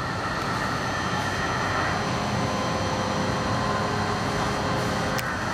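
Tram running along a city street, heard from inside the passenger car: a steady rumble of wheels on rails and running gear with a faint whine, and a short click near the end.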